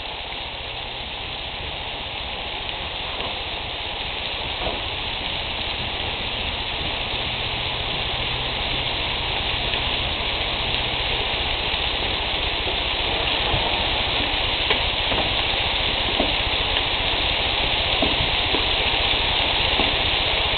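Bacon-wrapped quail sizzling on a barbecue grill: a dense, steady sizzle with scattered small pops and crackles of rendering bacon fat, growing gradually louder.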